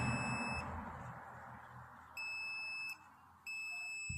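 Digital multimeter on its continuity (buzzer) range giving steady high-pitched beeps: one stops just after the start, another about two seconds in, and a third about three and a half seconds in that is still sounding at the end. Each beep means the probed points are shorted, the sign of the induction cooker's burnt-out rectifier bridge.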